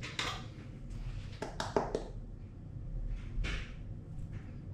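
Light clicks, taps and soft scrapes of a spoon scooping cocoa powder and tipping it into a kitchen machine's steel pot, with a few sharp clicks about a second and a half to two seconds in.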